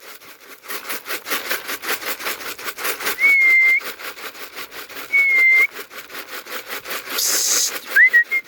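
A person whistling to call homing racing pigeons in to the loft: two held, level whistles a couple of seconds apart, then a short hiss and a quick rising whistle broken into chirps near the end.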